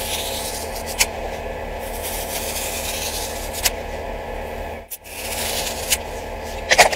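A small blade slicing down through the tightly wound layers of a thread spool: a steady crunchy rasp of threads being cut, with a few sharp snaps, the loudest near the end.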